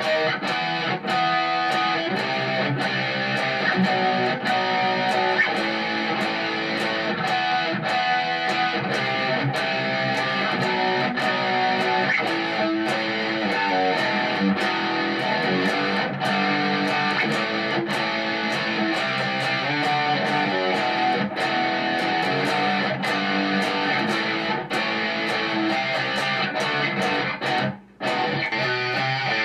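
Electric guitar played through an M-VAVE MK-300 multi-effects preset, picked and strummed continuously, with a brief break a little before the end.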